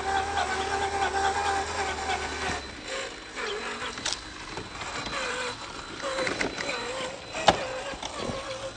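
Cross RC Demon scale crawler's electric motor and G2 aluminum transmission gears whining steadily, cutting off about two and a half seconds in. Scattered light clicks and knocks follow, with one sharper knock near the end.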